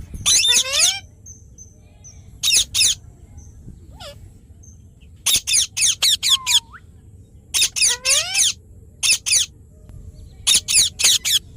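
Indian ringneck parakeet giving loud, harsh screeching calls in quick groups of two to five, with short pauses between the groups.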